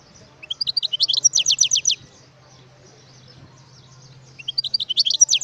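European goldfinch singing: two quick phrases of high, rapidly repeated down-sweeping notes, the second starting near the end.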